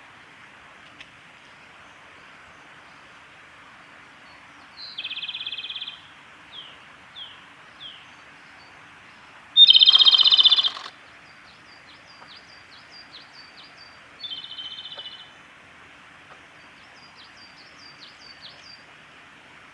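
Male Japanese robin singing: three loud rattling trills about five, ten and fourteen seconds in, the middle one the loudest. A few short falling notes follow the first trill.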